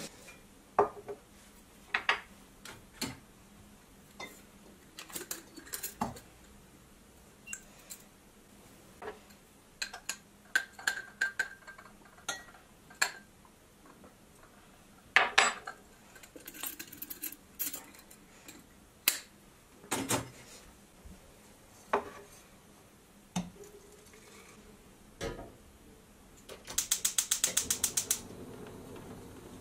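Scattered clinks and knocks of kitchenware: a spoon against a coffee jar and a copper cezve on a wooden board. Near the end a gas hob's spark igniter clicks rapidly, about ten a second, for about a second and a half, and the lit burner follows with a steady low hiss.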